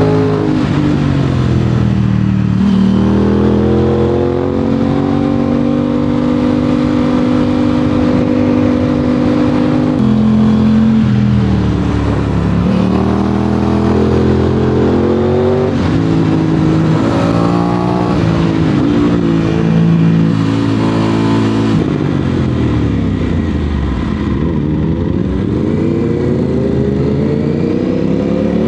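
Aprilia RS 660 parallel-twin engine through an SC-Project SC1-R exhaust, under way: the revs hold steady for several seconds, then change sharply at gear shifts and climb again under acceleration. About three quarters of the way through, the pitch falls away as the bike slows on engine braking, then rises once more near the end.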